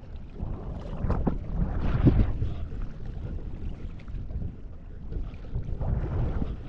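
Wind rumbling on the microphone at the seashore, swelling louder about a second in and again near the end.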